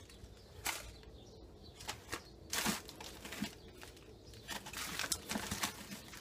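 Scattered soft rustling and crinkling of wrapped gift packages and their wrapping being handled and sorted, in short irregular bursts.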